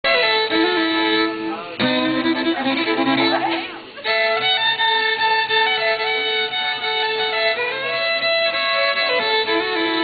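Fiddle bowed in long held notes, often two strings sounding together, as when tuning up.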